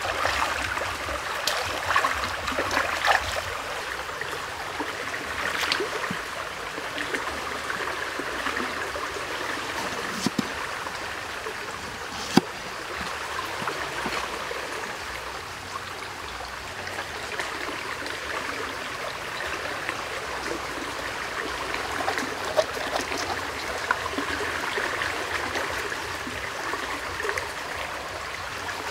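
Shallow stream flowing steadily, with a few sharp knocks, the loudest about twelve seconds in.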